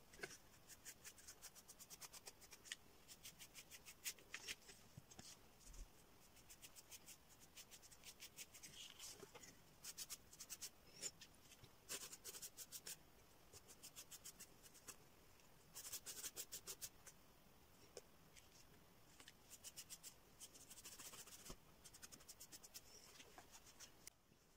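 Faint, quick dabbing of a paint-loaded sponge on cardboard: runs of light taps with short pauses between them.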